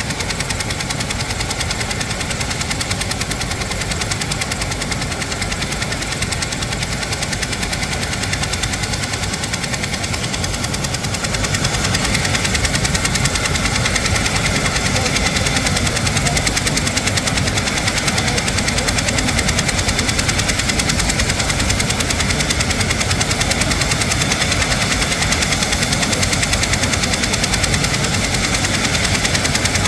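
Military helicopter's turbine engines and main rotor running on the ground, the rotor beating fast and evenly; the sound gets louder and brighter about twelve seconds in as the rotor downwash picks up.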